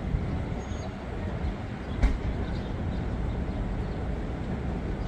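City street traffic: a steady low rumble of passing vehicles, with a single sharp thump about two seconds in.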